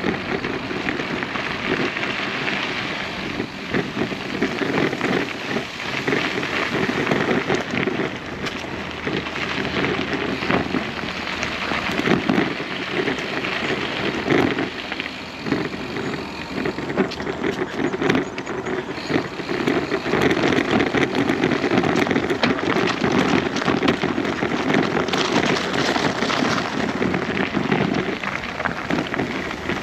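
Footsteps crunching on a loose gravel road at a running pace.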